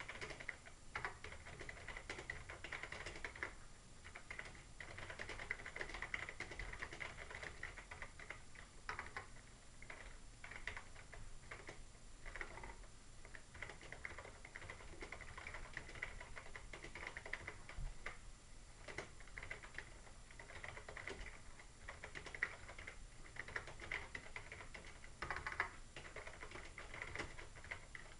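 Computer keyboard typing: quick, irregular runs of key clicks with brief pauses between bursts.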